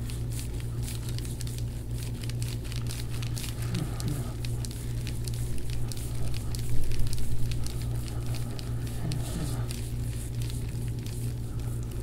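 Irregular fine crackling clicks from the patient's back as a chiropractor presses and works his forearm into the muscles over the shoulder blade, loudest about seven seconds in. The crackle is the knot crunching under pressure, as the video has it. A steady low hum runs underneath.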